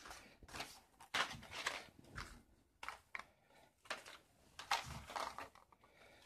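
A stack of cardboard coin-holder cards with plastic capsule blisters being handled and leafed through, giving irregular rustles and light knocks of card and plastic.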